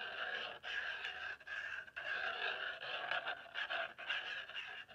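Metal tip of a fine liner applicator bottle of acrylic ink scratching across a gessoed journal page in short strokes, about one to two strokes a second.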